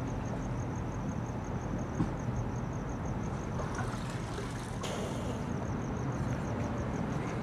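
Steady low background rumble with a faint high-pitched pulse repeating about five times a second, and a couple of soft knocks.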